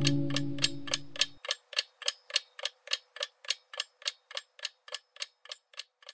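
Clock-like ticking, about three and a half ticks a second, growing slowly fainter. A held music chord underneath dies away about a second and a half in.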